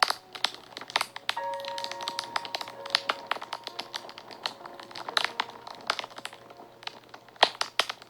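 Fire crackling and popping in sharp, irregular snaps, over background music of long held notes.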